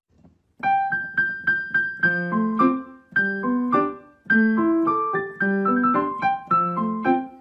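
Piano music: a light tune of quick, separate notes that starts about half a second in.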